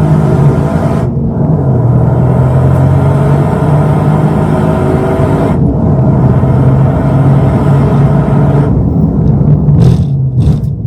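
Toyota GR Yaris's turbocharged 1.6-litre three-cylinder engine running hard at track speed, heard onboard over road and wind noise. Its sound changes about a second in and again around five and a half seconds, and drops off briefly near the end.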